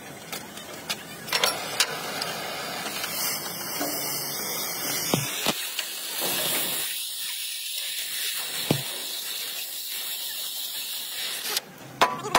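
A steady hiss with a few light metallic clinks, then near the end sharp sledgehammer blows on a hot rivet in a steel truck frame rail.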